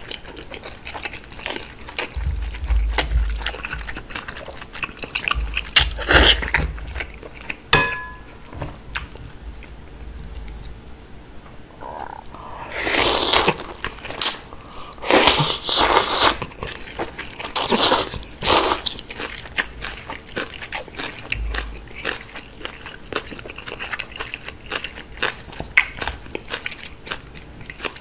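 Close-miked slurping and wet chewing of thick cold udon noodles. Small wet mouth clicks run throughout, and a run of loud, hissy slurps comes in the middle stretch.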